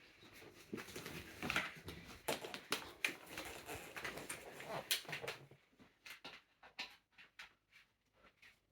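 Irregular clicks, knocks and rustling from a vacuum cleaner being handled and readied for use, thinning out to a few separate clicks after about six seconds.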